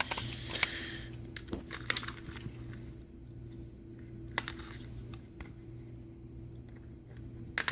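Scattered plastic clicks, taps and a brief scrape from a Kidde 0914 smoke detector being handled as its battery compartment is opened and the 9-volt battery taken out, with a quick run of clicks near the end. A steady low hum lies underneath.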